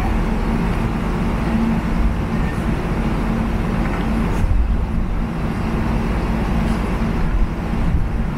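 Steady low mechanical hum of a running motor, several pitches held level without change.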